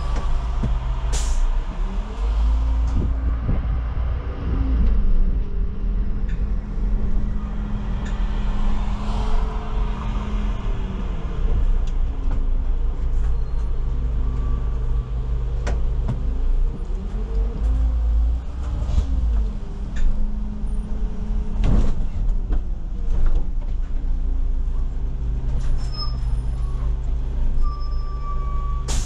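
Solaris Urbino 18 articulated city bus engine running under way, heard from inside the bus. Its pitch climbs and drops back as the automatic gearbox shifts. The engine falls back to a steadier idle-like note later, with a few sharp hisses or clunks.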